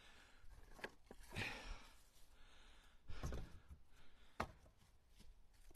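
Faint knocks of split seasoned red oak firewood pieces clunking against each other as they are picked up off a pile, with a man's heavy exhale about one and a half seconds in.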